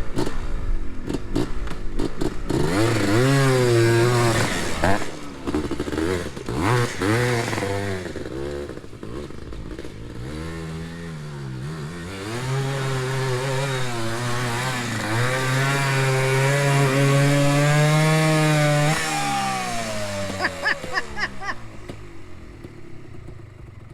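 Yamaha Blaster's two-stroke single-cylinder engine revving under load in second gear, the revs rising and falling and then held high for several seconds as the ATV pushes through the creek. The revs drop away near the end.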